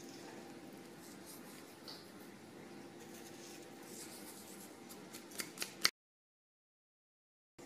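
Faint rustling of fingers pinching and sprinkling salt over a steady low room hum. About five and a half seconds in come three sharp clicks, the last the loudest, from the plastic lid of a cinnamon shaker jar. Then the sound cuts out completely.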